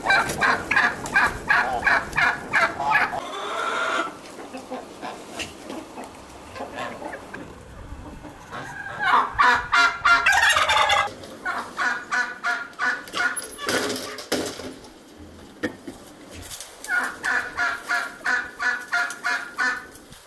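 Domestic fowl calling in several runs of quick, repeated notes.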